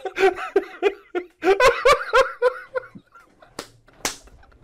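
People laughing hard in quick rhythmic bursts that die down after about three seconds, with a couple of short breathy noises near the end.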